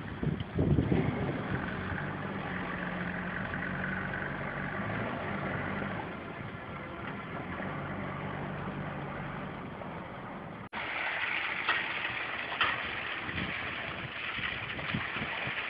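An engine idles under gusts of wind on the microphone. After an abrupt cut about two-thirds of the way through, crushed stone aggregate slides and scrapes off a truck bed in a gritty hiss, with a couple of sharp knocks of stone.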